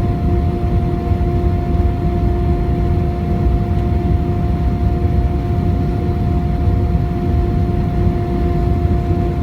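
Airbus A321 cabin noise at a window seat: a steady low roar of engines and airflow with a steady droning hum on top.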